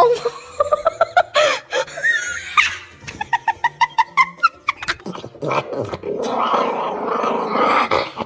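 Dogs vocalizing: a run of short, pitched yelps and whines, several a second, over the first few seconds, then from about five and a half seconds a denser, rougher sound.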